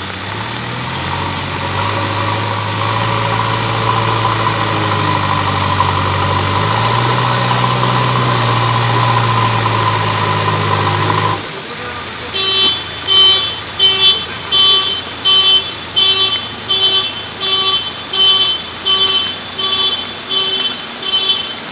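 Backhoe loader's diesel engine working, its pitch stepping up and down as it is revved. About eleven seconds in, the engine sound cuts off and a reversing alarm takes over, beeping steadily about one and a half times a second.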